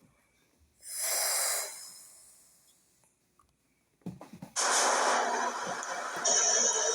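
New York City subway train pulling out of the station: a short air hiss about a second in, then a few clunks about four seconds in. After that comes a steady running noise of the train getting under way, with a thin high whine, growing louder near the end.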